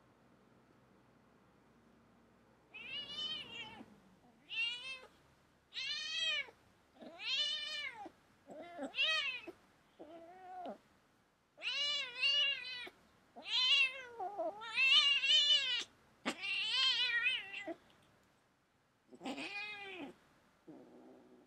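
Kitten meowing over and over, a long string of separate calls about one a second, each rising and then falling in pitch, the first about three seconds in.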